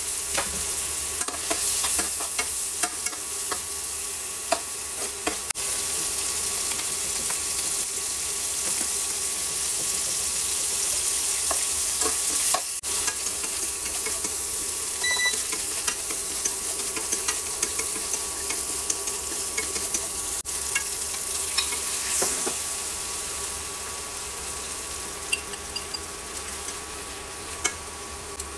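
Shrimp and squid sizzling as they stir-fry in a nonstick wok, with scattered light clicks and scrapes of the utensil against the pan as they are stirred. The sizzle gets a little quieter near the end.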